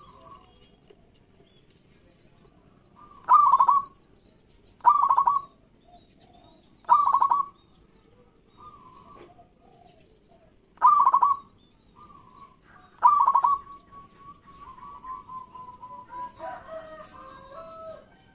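Zebra dove (perkutut) calling: five loud, short rolling coos, one to four seconds apart. A longer, softer trilling coo follows the last one, with fainter calls near the end.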